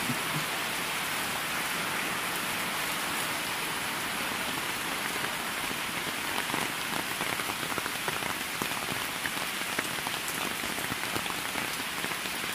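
Heavy rain falling steadily: a dense, even hiss with many separate drop hits close by.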